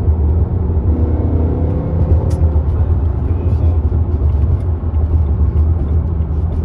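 BMW E90 M3 cruising at steady speed, heard from inside the cabin: its 4.0-litre V8 and the tyres give a steady low drone with no revving.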